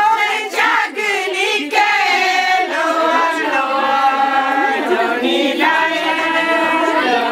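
A group of women singing together, several voices in unison, with a long held note in the middle.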